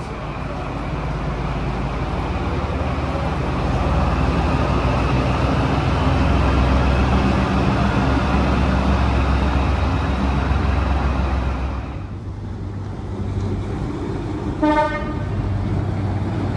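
Diesel train running by, its engine building to a loud rumble that drops away sharply after about twelve seconds. Near the end comes one short horn toot.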